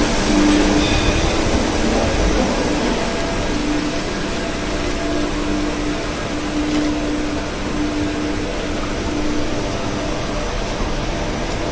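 Schindler 5500 lift car travelling through its shaft, heard from on top of the car: a steady rushing noise of the moving car and the air in the shaft, with a low hum running through it.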